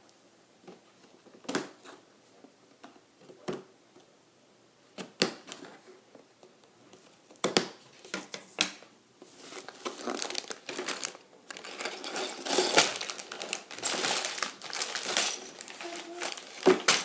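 A Lego set box being opened and its plastic packaging handled. Scattered sharp clicks and taps come first, then steady crinkling of plastic from about halfway through.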